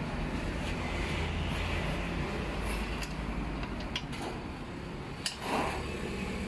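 Parts of a CVT being handled during teardown: a few light clicks, then a short scrape a little after five seconds in, over a steady low hum.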